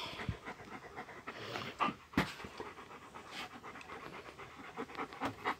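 Central Asian Shepherd Dog (Alabai) panting in short, uneven breaths.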